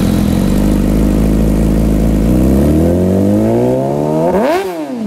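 Engine revving sound effect: a steady engine note climbs in pitch over about three seconds, peaks near the end and drops away sharply.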